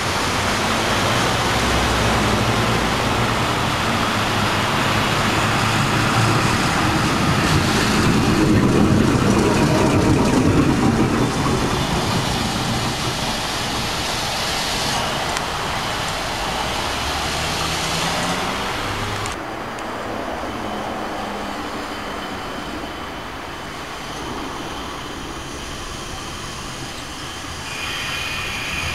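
Restored 1905 BC Electric interurban car running along its track as it approaches, loudest about a third of the way through. The sound drops suddenly a little past halfway and stays quieter after that.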